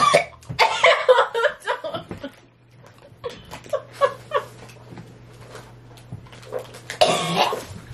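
Two women laughing and giggling in bursts, with a short burst of laughter again near the end.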